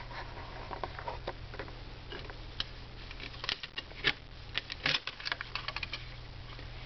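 Clothes hangers clicking and knocking as shirts on hangers are handled, with a quick run of clicks about three and a half to five and a half seconds in, over a steady low hum.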